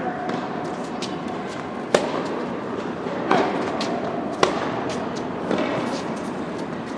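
Tennis rally: the ball pops sharply off the rackets and the hard court every second or so, with the loudest hits about two seconds in and again midway, over the steady hum of an indoor arena.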